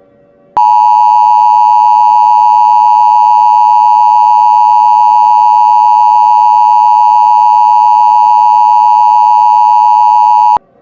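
Emergency Alert System attention signal: a loud, steady two-tone alert tone (853 and 960 Hz) held for about ten seconds, starting about half a second in and cutting off abruptly near the end.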